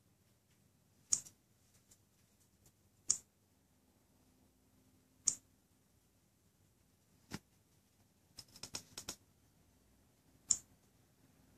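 Short, sharp clicks of a finger tapping the touchscreen of an ASUS Padfone 2 smartphone. They come one at a time about every two seconds, with a quick run of about six taps a little past the middle.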